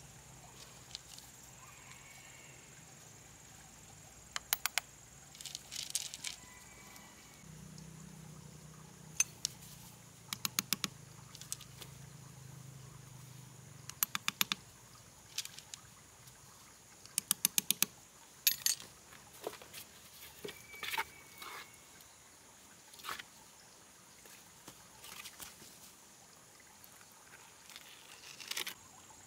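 A small hammer tapping river pebbles into wet cement mortar, in quick runs of four or five light taps repeated many times, with stones clinking. A steady high insect trill runs underneath.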